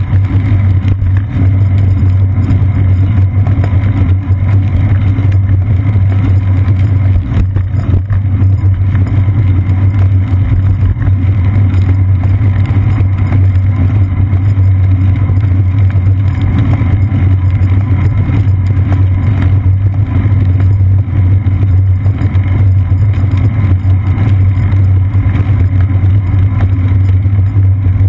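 Steady loud low rumble of road vibration and wind picked up by a seat-post-mounted GoPro Hero 2 while cycling on wet streets.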